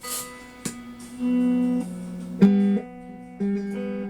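Hofner 459 VTZ electric guitar played through an amplifier: a few plucked single notes and two-note chords ring out one after another, the one just past halfway the loudest. The guitar is being tried out with its repaired treble boost circuit, which had been cutting out all sound.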